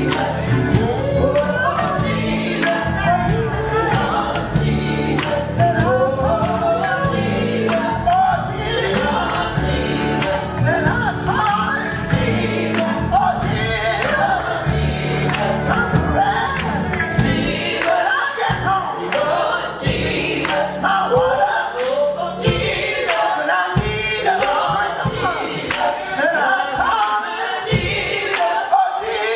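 Gospel song with group vocals over a band with drums. About two-thirds of the way through, the bass and low instruments drop out, leaving the voices and drum hits.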